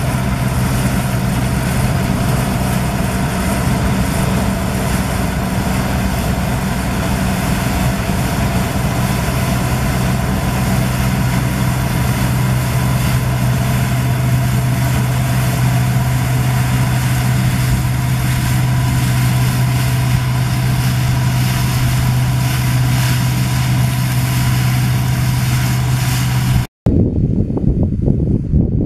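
Claas Dominator 96 combine harvester running steadily at work, a constant loud engine drone with a low hum. About two seconds before the end it cuts off abruptly to a low rushing noise.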